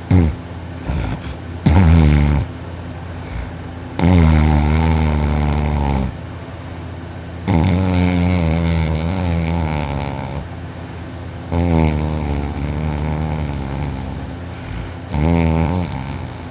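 A young man snoring loudly in deep sleep, lying on his back. There are two short snorts near the start, then long loud snores of two to three seconds each, coming about every three and a half to four seconds.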